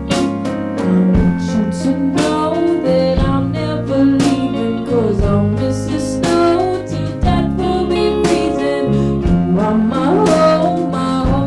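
Jazz combo playing an instrumental passage of a Christmas song, with a steady bass line under a moving melody line.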